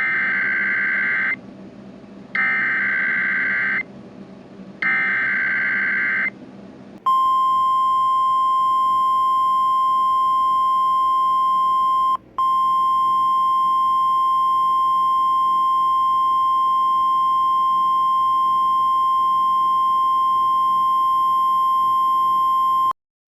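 Emergency Alert System SAME header: three bursts of digital data tones, each about a second and a half long. They are followed by the NOAA Weather Radio 1050 Hz warning alarm, a single steady tone held for about sixteen seconds with a brief dropout partway through, which signals that a warning is about to be read.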